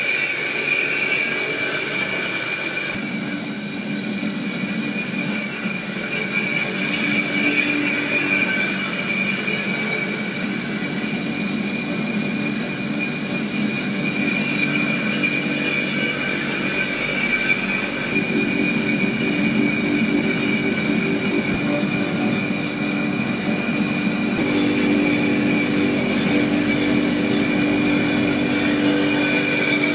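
Heavy-duty commercial mixer grinder running, its blade grinding a load of whole black spice masala in a stainless steel vessel. A loud, steady whine with a high tone over the churn of the spice. The sound shifts slightly about three seconds in and again later as the grind goes on.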